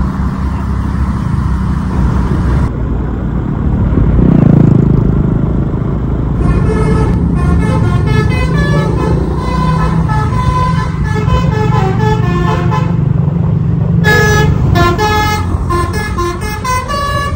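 A bus's low engine rumble, swelling briefly about four seconds in, then a multi-tone telolet horn playing a tune of stepped notes from about six seconds in, pausing briefly near thirteen seconds and starting again.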